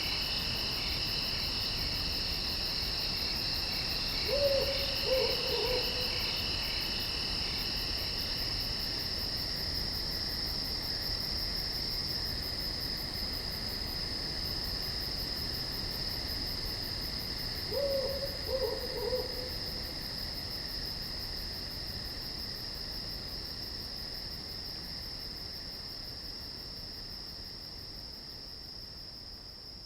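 Crickets and other insects trilling steadily, with an owl hooting twice, each time a short run of low falling notes: a few seconds in and again about halfway through. The whole fades slowly in the second half.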